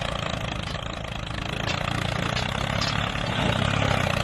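Tractor engine running steadily just after starting up.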